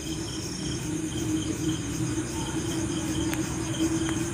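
A fork stirring milk into milk powder in a glass bowl, with a couple of light clicks late on as it touches the glass. Under it run a steady low hum and a high chirp repeating a few times a second.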